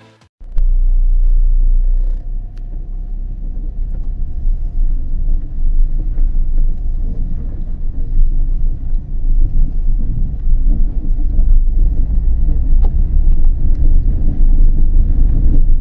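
A car driving along a road: a loud, steady low rumble of engine, tyres and air, heaviest in the deep bass. It cuts in suddenly about half a second in.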